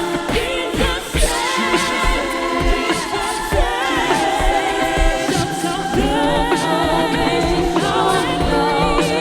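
A group of voices singing in harmony, with a steady low beat underneath.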